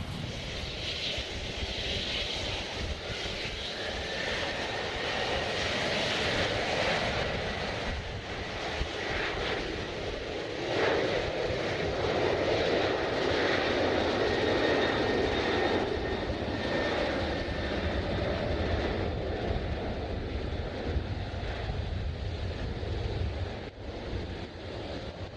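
Airliner engines as a plane passes: a steady rush with a faint high whine, growing louder toward the middle and easing off a little later.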